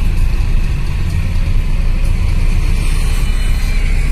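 Steady low rumble of road and engine noise from a moving Maruti Suzuki S-Cross.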